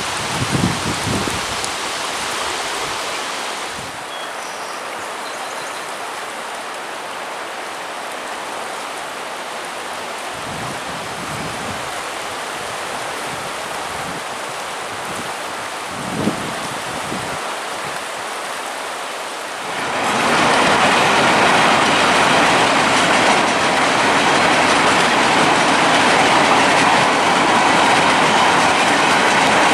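Steady hiss of river water, then about two-thirds of the way through a louder, steady noise takes over: a long freight train of covered hopper cars rolling along the rails.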